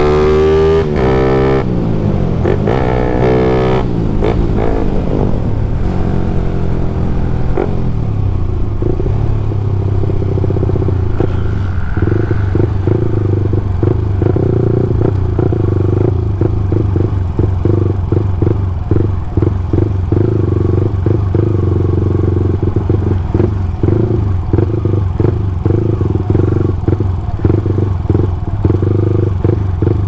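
Bored-up Yamaha MX King single-cylinder motorcycle engine heard from the saddle while riding. Its pitch changes through the first several seconds as revs fall, then it runs steadily, and from about midway the sound turns choppy with many short breaks.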